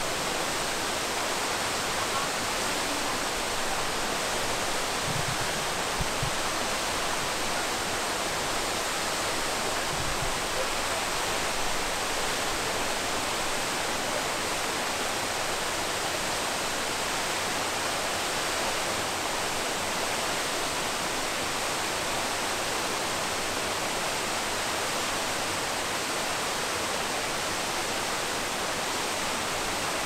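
Waterfall running: a steady, even rush of falling water that does not change.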